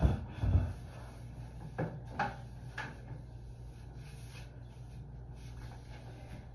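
A cleaning wipe rubbing over a plastic toilet seat and lid, with light knocks as the seat is handled. Two heavier knocks come at the start, a few lighter ones follow about two to three seconds in.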